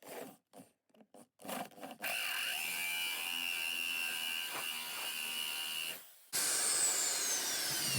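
Electric drill with a hand-resharpened bit pressed into steel, running with a steady high whine from about two seconds in. It stops just before six seconds, then starts again with a pitch that falls steadily. The sound does not seem right: the resharpened bit is not cutting the steel well.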